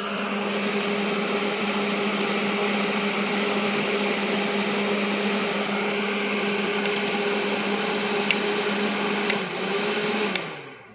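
A small electric motor, such as a household appliance, running steadily with a hum and a loud whirring hiss. A few sharp clicks come near the end, and the motor is then switched off, winding down in pitch and stopping.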